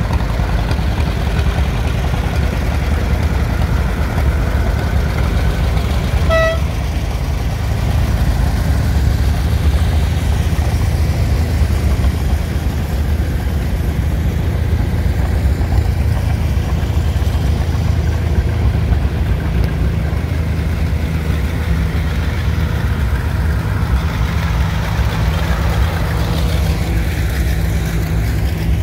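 Antique tractor engines, including two-cylinder John Deeres, running as the tractors drive past. A short horn toot sounds about six seconds in.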